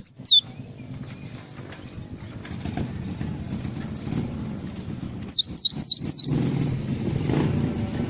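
Glatik songbird calling in sharp, high, downslurred whistles: a couple right at the start, then a quick run of four about five seconds in, over a steady low rumble of background noise.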